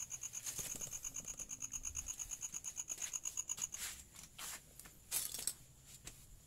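Rapid, high-pitched chirping, about ten even pulses a second, stops just under four seconds in. A few light scrapes and clicks follow, with two sharper knocks near the end.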